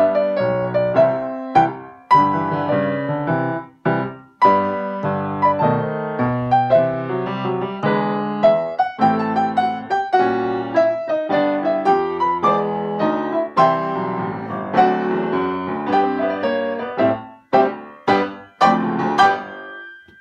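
Grand piano played four hands as a duet: a steady stream of melody notes over chords, slowing to a few separate chords near the end.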